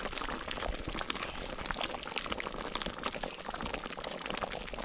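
Thickened sweet-and-sour sauce boiling in a pan, a steady run of many small bubble pops.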